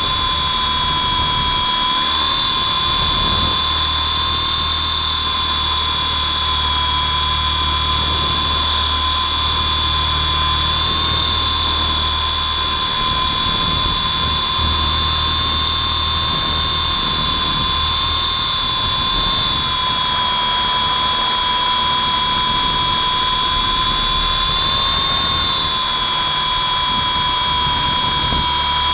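Electric motor whine of a WLToys V912 RC helicopter in flight, recorded close up by a camera mounted on the model. It is a steady high whine whose pitch wavers slightly a few times as the throttle changes, over a low rumble.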